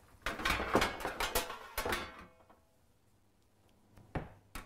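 Metal baking tray clattering and knocking as it is pulled out from under the counter: a quick run of knocks over the first two seconds, then two single knocks near the end.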